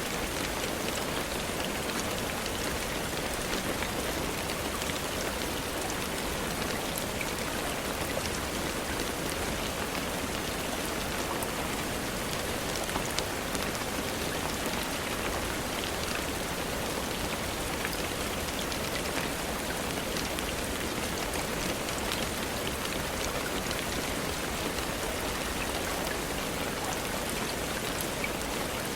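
Steady rain falling, a dense even hiss with scattered individual drops ticking on a surface.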